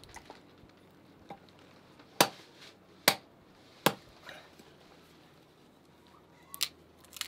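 Hatchet splitting kindling on a wooden chopping block: three sharp chops a little under a second apart, then two more strikes near the end.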